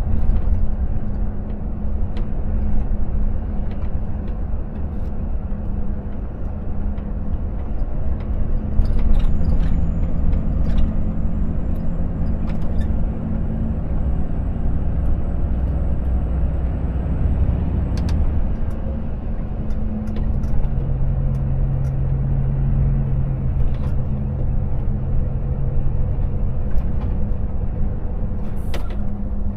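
Cab interior of a Volvo FH 460 truck on the move: the diesel engine runs steadily under continuous road and tyre rumble. Its note drops lower for several seconds past the middle, with a few faint clicks scattered through.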